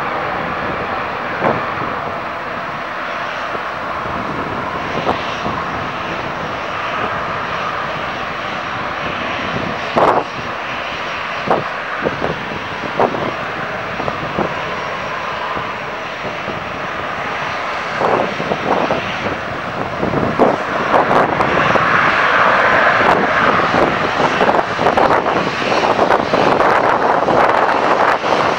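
Airliner engines running with a steady roar that grows louder about two-thirds of the way through, as an aircraft moves on the runway. Occasional brief knocks cut through it.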